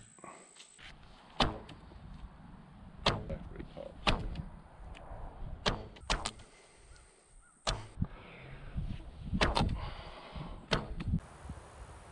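Daylite Monarq Korean traditional bow shot again and again in quick succession: a string of about seven sharp snaps, one every second or two.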